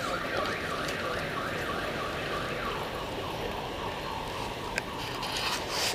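An electronic alarm or siren warbling rapidly, its pitch sweeping up and down about four times a second, fading out about halfway through, over steady street noise.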